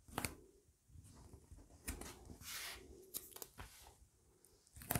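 Double-sided adhesive tape being pulled along and pressed onto the edge of a cardstock flap: faint sticky peeling and paper rustling with a few sharp clicks, the loudest just after the start and near the end.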